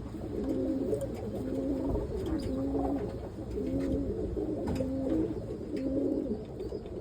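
Roller pigeons in a loft cooing, several low coos overlapping one another over and over.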